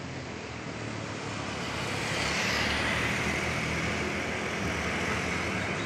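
Diesel engine of a Hino fuel tanker truck approaching with tyre and road noise, growing louder over the first two seconds and then running steadily.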